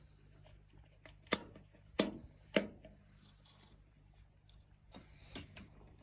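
Rotary setting knob of a CH-2000M Turbo plastic fan heater clicking sharply three times, about half a second apart, as it is turned through its detents. A few fainter clicks follow near the end.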